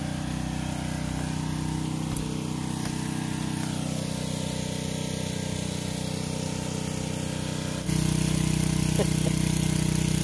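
Small engine of a portable generator running steadily, a constant hum; it gets louder about eight seconds in.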